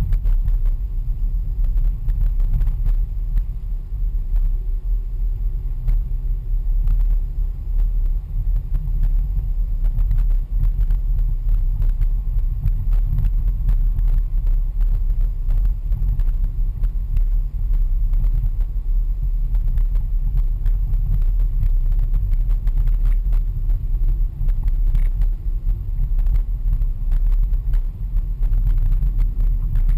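Steady low rumble of a car driving, heard from inside the cabin, with faint ticks scattered throughout.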